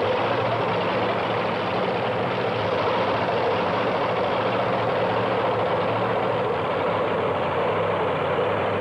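Engine of a super modified two-wheel-drive pulling truck running loudly and steadily, with no clear rise or fall in revs.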